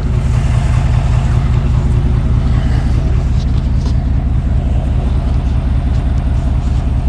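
Vehicle engine idling steadily, an even low rumble.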